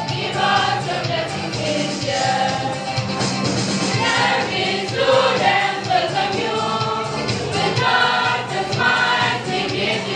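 A mixed group of young people singing a song together in chorus, with instrumental accompaniment.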